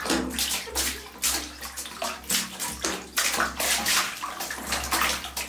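Water gushing from a pipe into a plastic tub already full of water, splashing in uneven surges.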